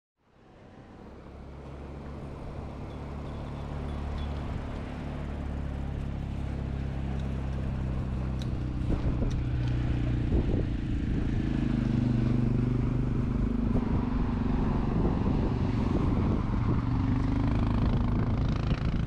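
Ride noise from a bicycle on a paved path: a steady low rumble of tyres and wind on the camera microphone. It fades in over the first few seconds, with a few knocks in the middle.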